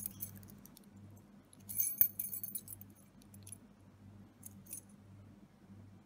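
A ring of metal keys jangling and clinking while a C4-type key is pushed into a Lockwood pin-tumbler lock cylinder. The loudest clatter comes about two seconds in, followed by a few light metallic clicks.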